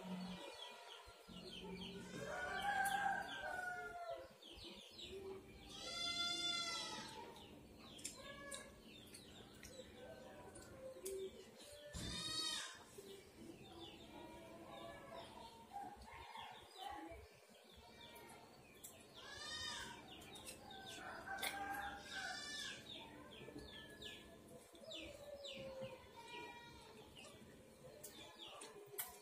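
Chickens calling and crowing a handful of times, each call about a second long, the loudest a few seconds in. Between the calls come faint small clicks from a metal spoon scooping soft papaya flesh, along with chewing.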